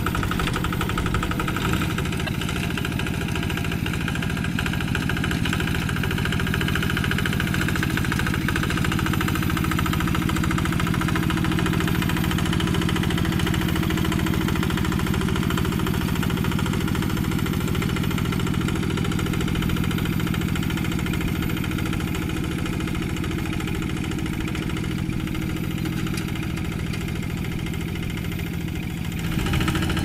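Single-cylinder diesel engine of a two-wheel walking tractor, running steadily under load as it pulls a plough through a rice paddy.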